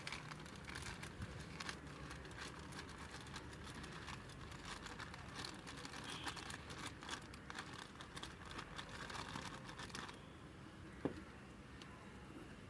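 Clear polythene bag crinkling and crackling as damp cocopeat is pushed and packed into it by hand. The dense crackling stops about ten seconds in, followed by one sharp click.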